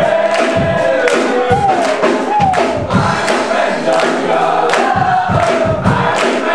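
Live worship music: a crowd singing along in unison with singers and a band, with regular percussive hits under the melody.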